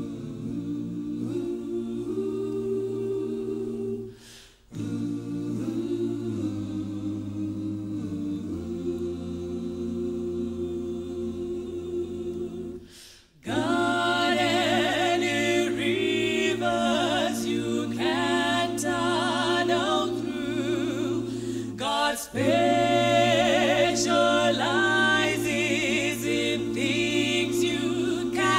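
Mixed-voice gospel choir singing a cappella in close harmony. Soft held chords break off briefly twice, then about halfway through the singing comes in louder and fuller, with high women's lead voices over the choir.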